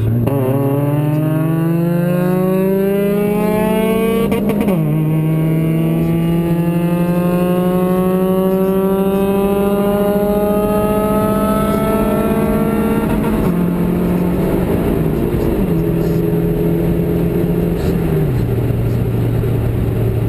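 Chevy Cobalt 2.2L four-cylinder engine pulling hard at full throttle: the revs climb, drop once at a gear change about four and a half seconds in, and climb in a long pull in the next gear. Near the middle the driver lifts off, and the revs fall in three steps back to a steady drone.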